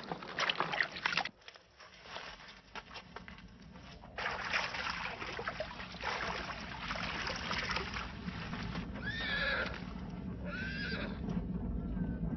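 Horses whinnying: two short calls about a second and a half apart, about nine seconds in, over clattering and a steady rushing noise.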